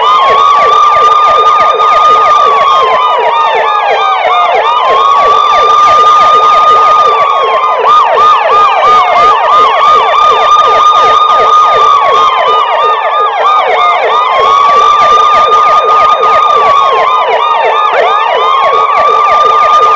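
Siren sounding continuously. A wail climbs quickly, holds, then slides slowly down, repeating about every four and a half seconds, over a second tone that warbles rapidly up and down.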